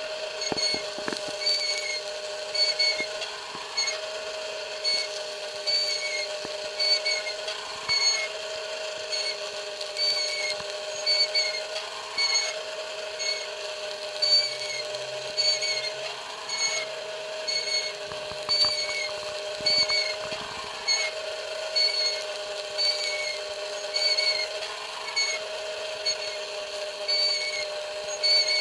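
Electric rotisserie motor turning a kontosouvli spit over charcoal, with a steady hum and a short high squeak repeating at an even pace as the spit turns.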